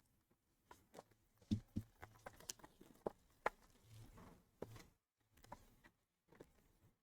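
Faint scattered clicks, taps and rustles of cardboard and packaging being handled as a hobby box of trading cards is opened.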